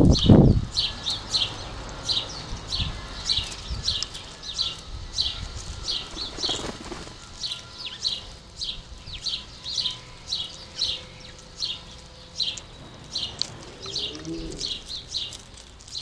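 House sparrows chirping, short high chirps repeated about twice a second. A brief low flutter sounds in the first half second.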